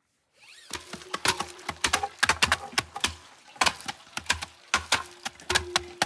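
A rapid, irregular run of sharp knocks and cracks, several a second, over a faint steady hum.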